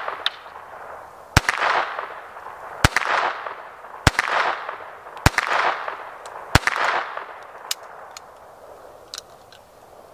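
Beretta 21A Bobcat .22 Long Rifle pistol firing five single shots about a second and a half apart, each followed by a second of fading echo. A few faint small clicks follow near the end.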